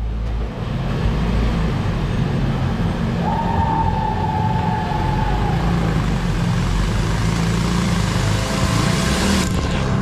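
Motorcycle engine running steadily as the bike rides through a rough, unlined rock tunnel, with a constant rushing noise over it. A thin, high, steady tone sounds for about two seconds, starting about three seconds in.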